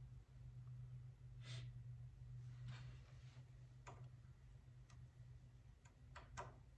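Near silence: a steady low hum with a handful of faint clicks and light taps scattered through it, the sharpest few near the end, as hands set the tool height on a small lathe's tool post.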